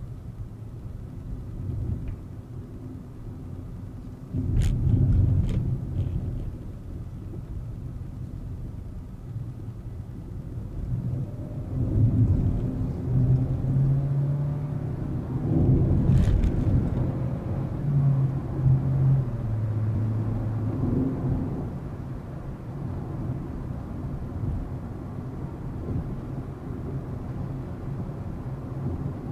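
Volkswagen Vento with a 1.2 TSI engine on the move: a steady low rumble of engine and road noise, with the engine note shifting pitch several times through the middle. A few sharp knocks come about five seconds in and again about sixteen seconds in.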